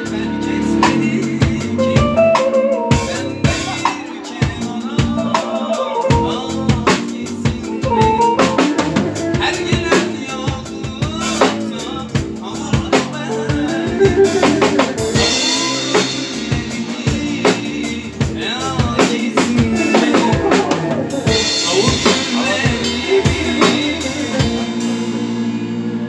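Live Turkish arabesk band playing an instrumental passage: a drum kit keeps a steady beat with kick and snare under a wavering melody line, with no vocals yet.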